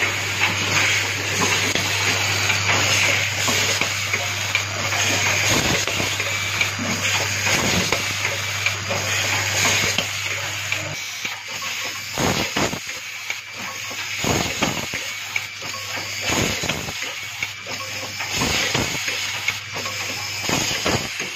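Automatic switch assembly machine running, with a steady air hiss and a low hum that stops about halfway through. From then on its rotary indexing table and pneumatic grippers give a series of irregular metallic clicks and knocks.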